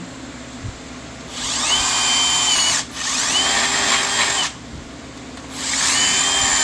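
Power drill boring a hole in the car's body trim for the backup camera. It runs in three bursts with short pauses between, and each burst starts with a rising whine as the drill spins up.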